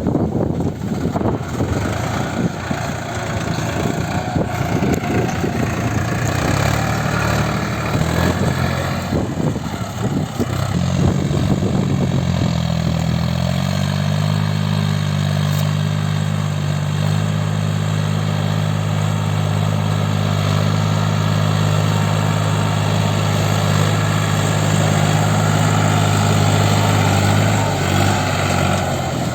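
Tractor diesel engine running while pulling a reversible plough. The sound is rough and noisy for the first several seconds, then settles into a steady engine note from about halfway in until near the end.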